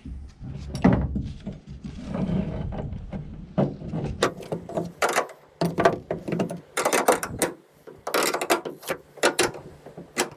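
Hand ratchet clicking in repeated short runs of strokes, with pauses between them, as a bolt is run in and tightened.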